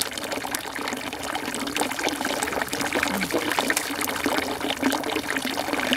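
Steady rush of running water, with small crinkling clicks from an ice cream cup's wrapper being handled.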